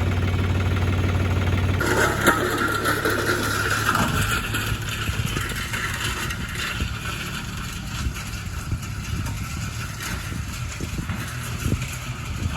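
Case IH JX60 tractor's diesel engine running steadily. About two seconds in, the sound changes abruptly to a rougher, somewhat quieter running sound with scattered rattles and knocks.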